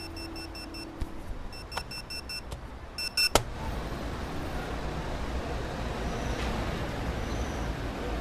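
Short runs of fast, high electronic ticks or beeps, cut off by a sharp click about three seconds in, followed by a steady low rumbling noise.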